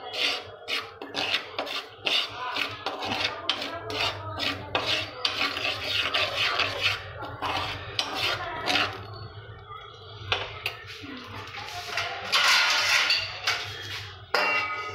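A metal spoon scraping and stirring through hot rock salt and foxtail millet in a metal frying pan: a gritty rasp with each of many quick, repeated strokes.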